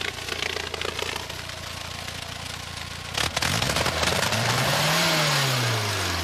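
Engine idling steadily, then revved up about three seconds in and let back down, its exhaust rushing out of a silencer into a plastic bag.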